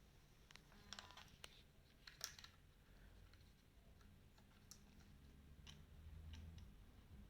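A few faint, scattered clicks and small handling knocks over a low room hum, loudest about two seconds in.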